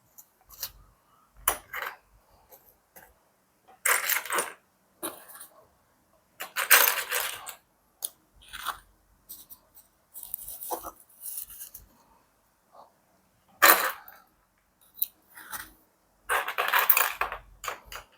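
Loose seashells clicking and crunching against each other as they are rummaged through and picked out by hand, in short bursts with pauses between.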